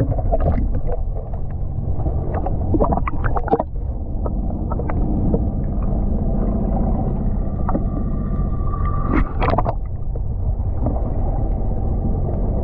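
A boat's engine running steadily, with scattered knocks and clicks of gear on board and a brief higher whine about eight seconds in.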